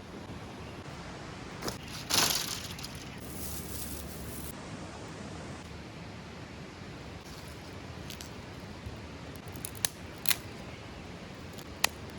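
A few sharp clicks and snaps over a steady hiss, the loudest and longest about two seconds in, the rest scattered singly later on.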